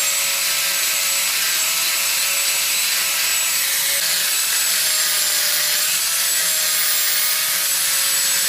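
A small power tool working wood: a steady abrasive hiss with a faint, slightly wavering motor whine, and no separate strokes.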